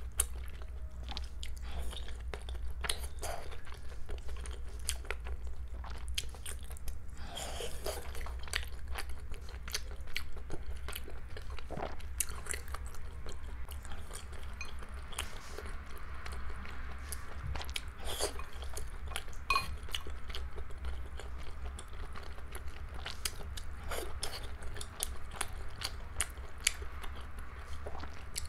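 Close-miked chewing and wet mouth sounds of someone eating boiled shepherd's-purse dumplings in sauce, with many small clicks and smacks. A steady low hum runs underneath.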